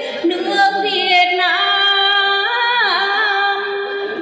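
A woman singing a Tày–Nùng folk song into a microphone, holding long notes that dip in pitch and slide back up.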